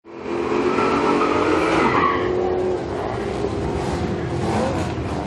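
Drag-racing car engines running loud at the strip, cutting in suddenly, with a steady engine note that gives way to a rougher, noisier sound after about two and a half seconds.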